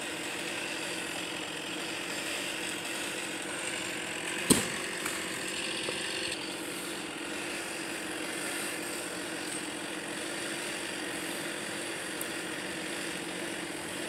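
An engine running steadily at low revs, with no revving, and one sharp knock about four and a half seconds in.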